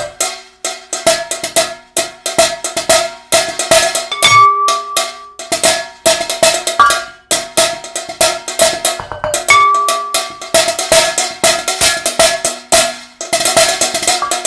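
Improvised rhythmic percussion played on struck household kitchen objects: a fast, busy pattern of sharp hits, several of them leaving short ringing pitches like a cowbell.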